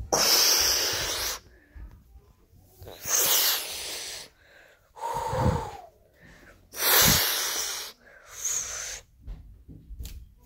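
A child's mouth-made sound effects: about five breathy hissing bursts in a row, each under a second and a half, with short pauses between, voicing blasts in a toy battle.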